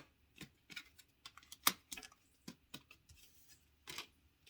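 Light, irregular clicks and taps, about a dozen over a few seconds, from tarot cards being handled and tapped on a table.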